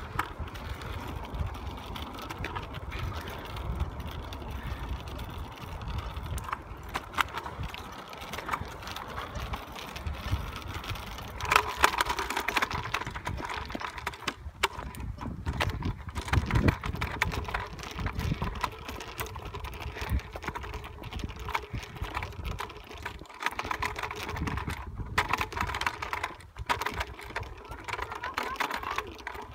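Bicycle riding along a paved farm track: irregular clicking and rattling, over a steady low rumble of wind on the microphone.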